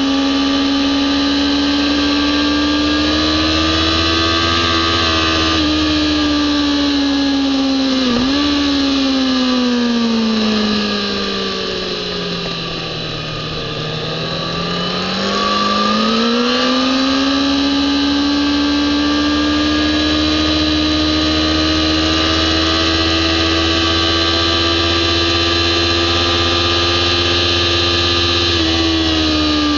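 Kawasaki ZX-10R inline-four sportbike engine running at high revs under throttle, with wind rush. A quick dip in pitch about 8 s in marks a gear change. About a third of the way in, the revs fall away as the bike slows for a tight corner, then climb steadily back as it accelerates out. The revs drop again near the end.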